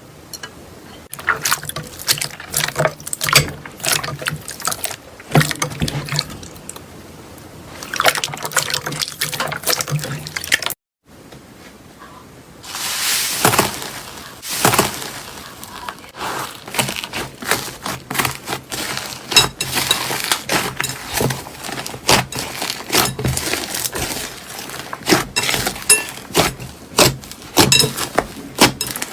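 Slime being squeezed and pressed by hand, giving irregular wet, sticky clicks and crackles. It breaks off briefly about eleven seconds in and resumes with another batch of slime.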